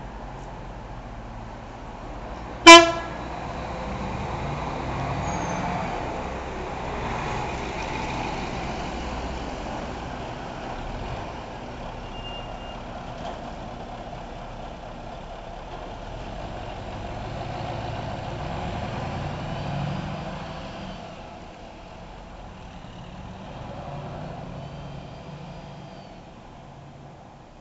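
A single short horn toot about three seconds in, the loudest sound, followed by the diesel engine of a Neoplan Skyliner double-decker coach pulling away, swelling twice and fading as it drives off.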